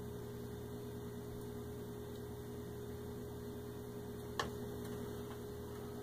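Steady electrical hum, with one sharp click about four seconds in as the beer tap's faucet is shut.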